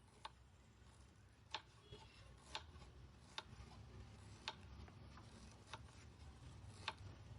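About eight light, sharp taps, roughly one a second and unevenly spaced, over a faint low hum.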